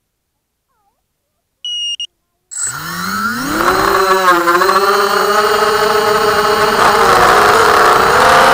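Two short high beeps, then the four Cobra 2206 brushless motors and propellers of a 250-size FPV quadcopter spin up with a rising whine about two and a half seconds in. They settle into a steady whine that shifts in pitch with the throttle, heard from the camera on the frame.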